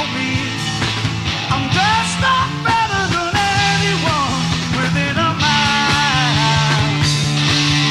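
Live rock band recording: a voice singing over electric guitar, bass and drums. The cymbals get louder about five and a half seconds in.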